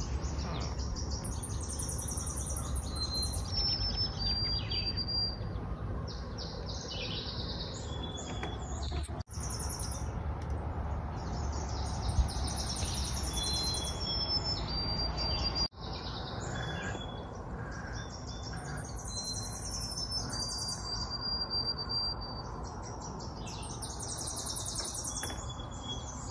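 Several songbirds singing at once, a mix of chirps, trills and clear whistled notes, over a steady low rumble.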